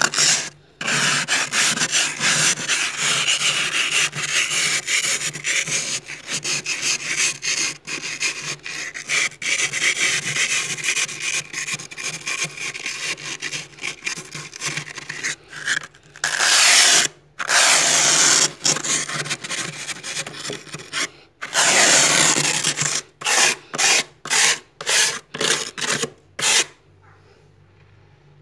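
Plastic card scraping soft, thick frost off a freezer wall: a long run of quick, rasping strokes. Near the end it breaks into a handful of short separate strokes, then stops.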